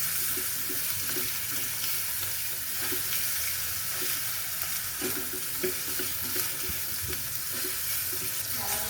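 Food sizzling in a pan: a steady hiss.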